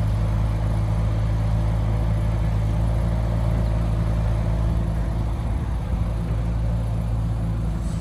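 Diesel engine of heavy earthmoving machinery running steadily at an even pitch.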